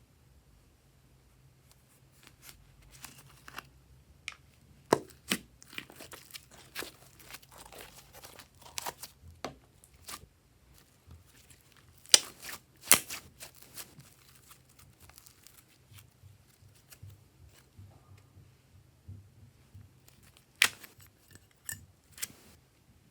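Hands working glossy slime: irregular sharp clicks, pops and tearing crackles, a few of them much louder than the rest.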